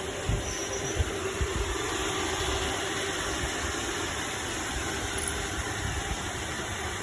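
iRobot Roomba 780 robot vacuum running, a steady whir of its suction motor and brushes, with a few low knocks in the first couple of seconds.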